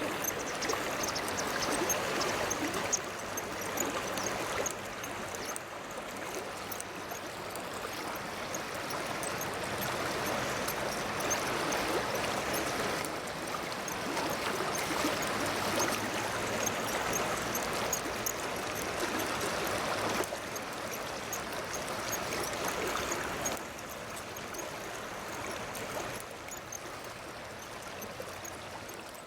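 Water running and gurgling steadily, swelling a little now and then and a bit quieter for the last few seconds.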